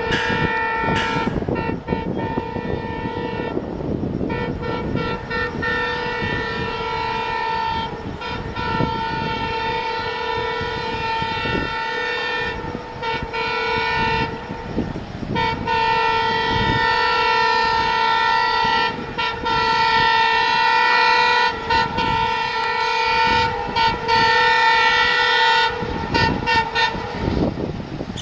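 WDM3D diesel locomotive's horn blaring almost without a break, a steady chord interrupted only by a few short gaps, over the rumble of the train. It is a long warning blast to drive a man off the track.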